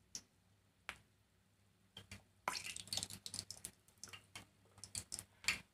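Hot oil crackling and spitting as raw namak pare dough pieces go in for deep-frying: a few sharp crackles at first, then, from about two and a half seconds in, a quick irregular run of crackles.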